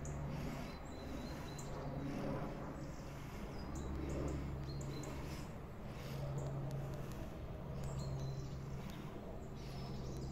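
Low, steady drone of a large cargo plane flying high overhead, with small birds chirping now and then.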